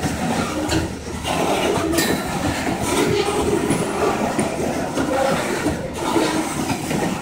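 Covered hopper cars of a freight train rolling past close by: steel wheels on rail making a steady rumble, with an occasional click as wheels cross rail joints.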